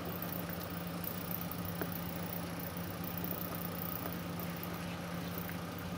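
Soft squishing and rubbing of fingers kneading a sticky flour-based slime dough in a small cup, over a steady low hum.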